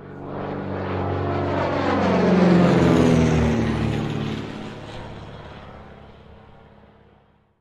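A propeller airplane flying past: it grows louder, its pitch drops as it goes by about two and a half seconds in, then it fades away.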